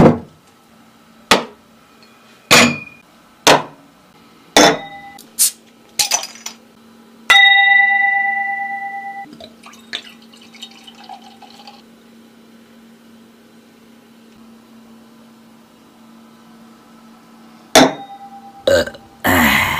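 A run of sharp clicks and knocks. One strike sets a glass ringing clearly for about two seconds. Then comes the faint hiss of beer being poured into a glass, and near the end a couple more knocks and a louder rustling burst.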